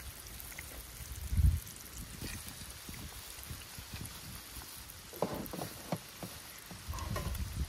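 Eggs sizzling and crackling in a frying pan. A dull low thump comes about a second and a half in.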